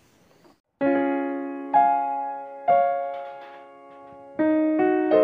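Outro music on a keyboard with a piano sound: slow single notes and chords, each struck and then fading. It starts just under a second in, after a short silence, and the notes come faster near the end.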